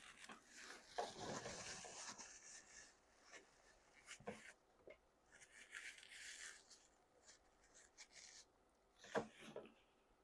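Faint rustling and rubbing in two stretches, with a few soft knocks, the clearest near the end.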